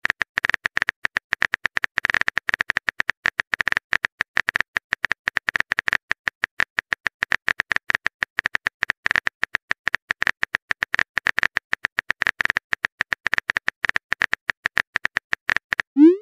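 Keyboard-typing click sound effect from a texting app, rapid sharp clicks at several a second in uneven runs as a message is typed out. Near the end a short rising swoosh begins as the message is sent.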